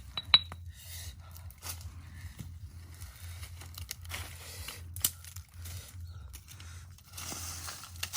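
Rustling and crinkling handling noises with scattered sharp clicks, the loudest a third of a second in and another about five seconds in, over a steady low hum.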